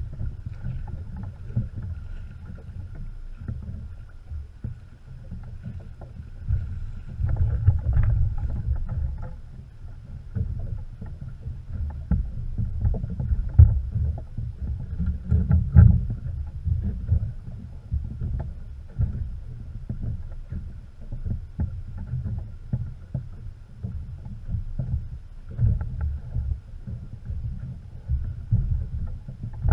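Water slapping and sloshing against the side of a small fishing boat, over a low, uneven rumble, with scattered knocks and splashes. The loudest come about 8, 13 and 16 seconds in.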